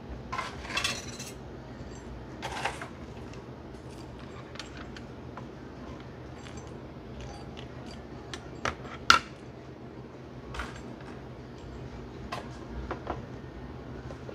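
Metal spoon clinking and tapping against the dessert cup and topping containers as dry cereal and cookie crumbs are scooped on, with short rustles of the dry pieces early on and scattered clicks, the sharpest about nine seconds in, over a steady low hum.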